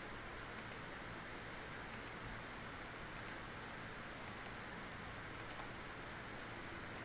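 Faint computer mouse clicks, roughly one a second and some in quick pairs, over a steady hiss.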